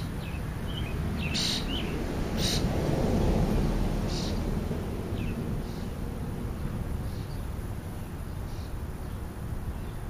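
House sparrows chirping: a few short, sharp chirps in the first four seconds, then fainter, sparser ones, over a steady low outdoor rumble.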